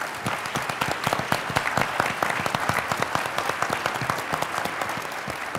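Audience applauding: many people clapping at once in a dense, steady patter that eases slightly near the end.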